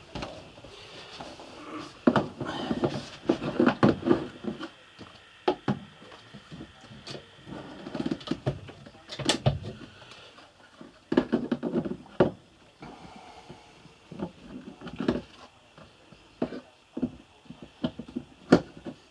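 Irregular knocks, clunks and rattles of metal seat-base parts and tools being handled while a driver's seat is fitted, coming in short clusters.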